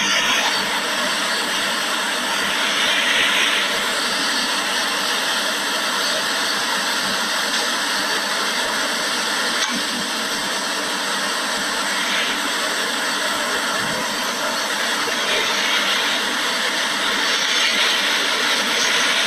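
Steady hissing background noise with a few faint steady tones in it, unchanged through the whole stretch.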